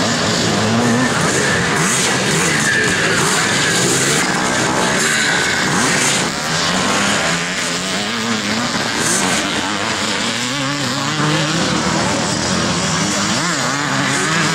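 Several vintage twinshock motocross bikes racing, their engines revving up and down in a loud, wavering mix of rising and falling engine notes.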